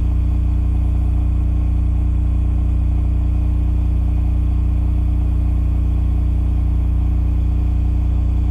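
Cummins RS20A standby generator running steadily under load at 3,600 RPM, a constant low engine hum with no change in pitch.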